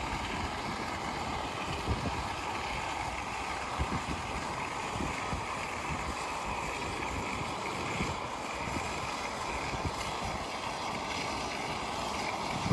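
Wind buffeting the microphone in uneven low gusts, over a steady hiss.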